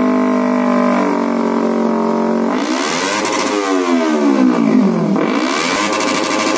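Kawasaki Ninja 250 engine running through an SC Project-style aftermarket racing muffler. It holds steady revs for about two and a half seconds, then the throttle is blipped and the revs rise and fall in two slow sweeps.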